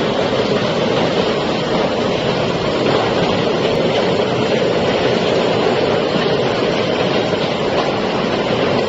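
Rotary bottle unscrambler running: a loud, steady noise that holds even throughout.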